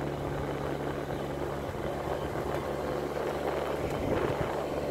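Large fishing boat's big inboard engine running steadily under way, a continuous low hum with a rushing hiss over it.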